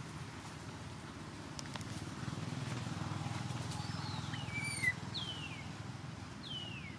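Newborn macaque giving several short, high-pitched squeals, each sliding down in pitch, from about halfway in, over a steady low rumble.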